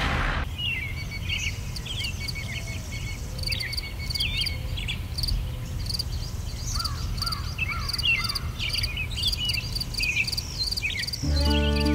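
Birds chirping and calling, short high notes and quick chirps repeating in many voices, over a low steady background rumble. Music comes in near the end.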